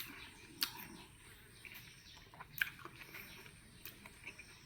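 Faint wet mouth sounds of someone chewing watermelon, with a few soft clicks and smacks.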